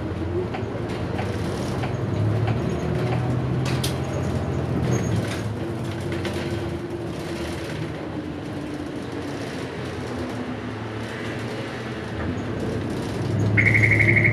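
City bus heard from inside the cabin: the engine running as the bus drives through a turn and on along the street, with a single click about four seconds in. Near the end a high, rapidly pulsing electronic tone sounds for about a second.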